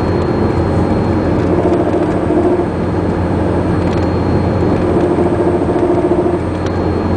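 Chevrolet Cavalier driving at speed, heard from inside the cabin under the dash: a steady drone of engine and road noise. A higher hum comes in twice, each time for a second or so.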